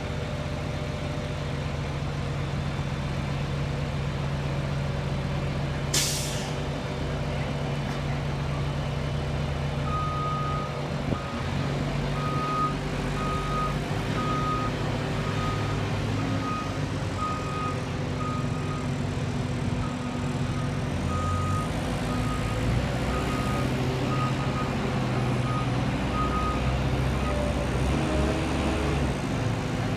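Truck-mounted knuckle-boom crane's diesel engine running steadily while it lifts a load, with a short sharp hiss of air about six seconds in. An intermittent warning beeper sounds from about ten seconds in until near the end.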